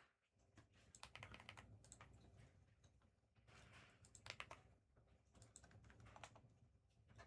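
Faint typing and clicking on a computer keyboard, in short scattered clusters.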